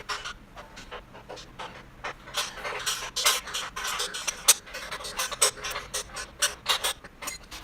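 Hand tools and steel parts of a motorcycle dolly being handled during assembly: a run of irregular clicks, scrapes and rattles, busiest through the middle.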